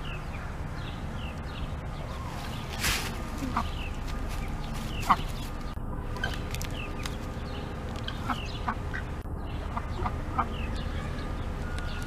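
Farmyard poultry calling in short clucks scattered through, the loudest about five seconds in, over faint high chirps of small birds and a steady low rumble. A brief noisy rustle comes about three seconds in.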